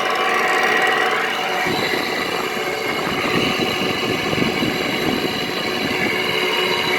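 Frigidaire window air conditioner running with a steady hum. About two seconds in, a rough, gravelly rattle joins it: the unit is still really noisy.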